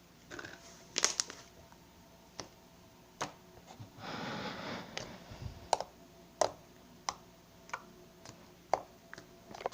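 Slime being handled: a string of sharp clicks and pops, about a dozen in all, with a longer squelching rustle about four seconds in.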